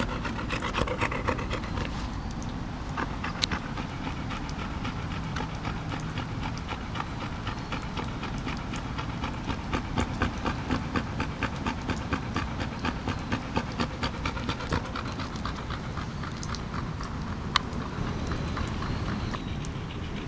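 A dog panting in a quick, steady rhythm of several breaths a second.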